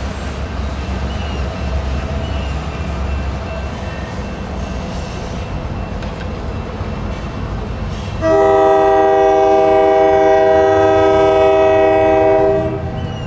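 A freight train rumbles, then a diesel locomotive's multi-chime air horn sounds one long, steady blast of about four seconds, starting about eight seconds in and cutting off near the end.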